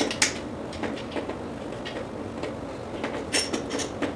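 Screws being driven by hand with a screwdriver to fasten a vertical-blind mounting bracket: irregular small clicks and scrapes of metal, with a cluster of them about three seconds in.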